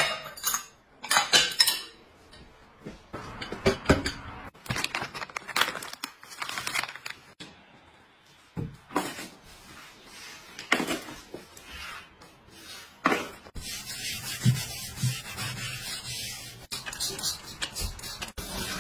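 Ceramic bowls and plates clinking and clattering as they are stacked, with chopsticks knocking against them in scattered, separate hits, then a rougher, steadier noise over the last few seconds.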